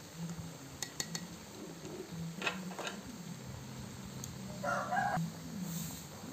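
A rooster crows once, briefly, about four and a half seconds in. Before that come a few light knocks and scrapes from cassava grits being tipped out of a plastic basket into an aluminium steamer.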